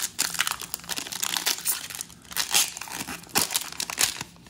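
Foil trading-card pack being torn open and crumpled by hand: a dense run of crinkling and crackling with a few louder crackles.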